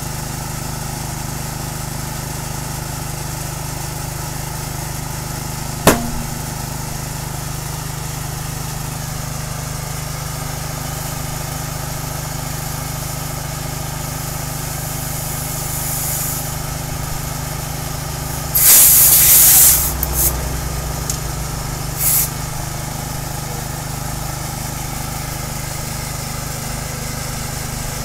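A small petrol engine running steadily while a car tyre is inflated through an air hose at the valve. A single sharp crack about six seconds in, then a loud burst of hissing air past the middle and a short hiss a few seconds later.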